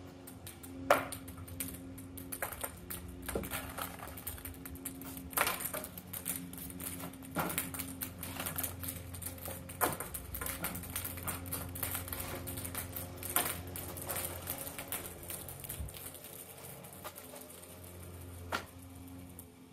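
Small light balls thrown by hand, clicking and clattering as they bounce off a cinder-block wall and concrete ground: a rapid scatter of light clicks with a few sharper hits, over a low steady hum.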